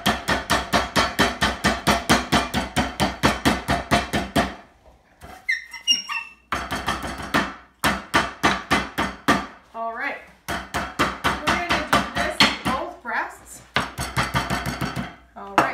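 Wooden rolling pin pounding a butterflied chicken breast flat through plastic wrap on a plastic cutting board: rapid thumps about five a second. A pause comes a little over four seconds in, then the pounding resumes.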